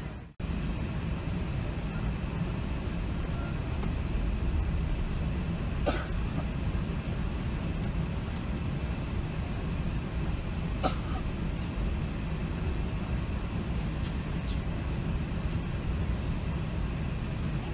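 Steady low cabin rumble inside an Airbus A380 from its engines and air systems, with two short clicks about six and eleven seconds in.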